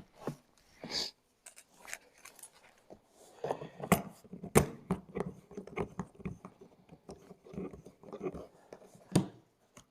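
Handling noise: scattered clicks, taps and rustling as parts are handled, with sharper knocks about four and a half seconds in and again near the end.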